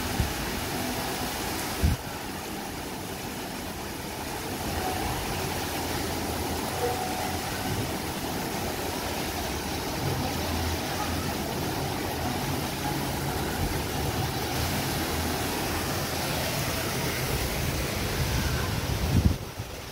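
Water jets spouting from arched pipes and splashing steadily into a pool, with a low hum underneath and a couple of brief knocks.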